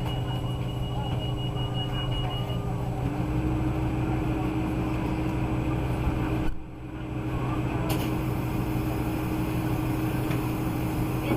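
Interior sound of a British Rail Class 153 diesel railcar: the underfloor diesel engine running steadily with a low hum. A thin high tone sounds for the first couple of seconds, and about three seconds in a tone rises slightly and then holds.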